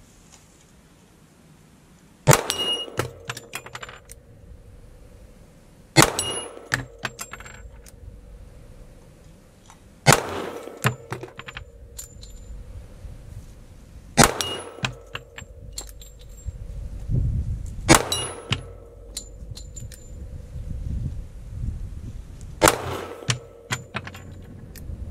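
Six slow, aimed shots from a .45 ACP pistol, about four seconds apart. Each shot is followed by a short metallic ring from the 6-inch steel gong at 25 yards being hit.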